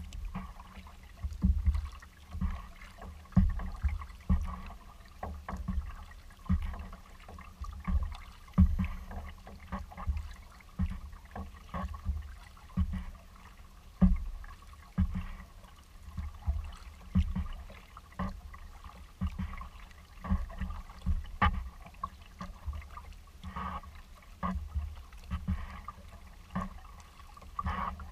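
Kayak being paddled: a steady rhythm of paddle strokes about once a second, each with a low thud and the splash and trickle of water off the blade.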